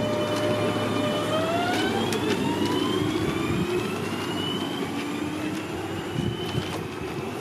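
Electric train pulling away, its traction motors giving several whining tones that rise steadily in pitch as it gathers speed, over the rumble of the running gear.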